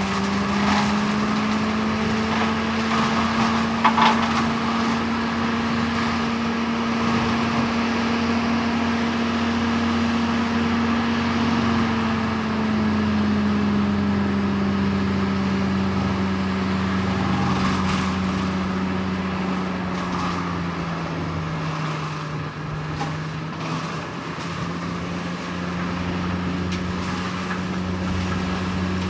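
Diesel engine of a John Deere skid steer running hard with a forestry mulcher attachment working. The engine note holds steady, dips in pitch for several seconds past the middle as if pulled down by load, and comes back up near the end, with a few sharp cracks about 4 and 18 seconds in.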